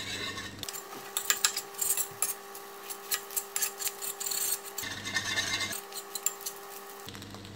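Spatula and fork scraping and tapping against a stainless steel frying pan, chopping up a cooked omelette, in quick, irregular clicks and scrapes.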